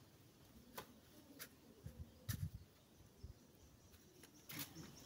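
Near silence: a few faint scattered clicks and soft low thumps.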